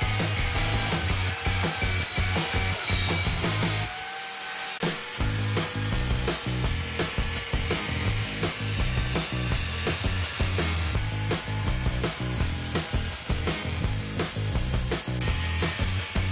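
Angle grinder fitted with a chain-bar cutter attachment running and cutting into zelkova wood with a fast rattle, pausing briefly about four seconds in. Background music plays underneath.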